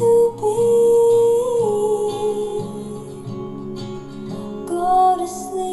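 Music with guitar and a held melody plays through a small bookshelf speaker driven by a Bose 5-channel car amplifier from a Mazda RX-8, on the amp's first channel during a bench test. The amplifier is passing sound on that channel.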